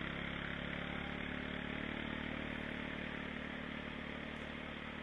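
ATV engine idling steadily at a constant pitch, easing off slightly in loudness toward the end.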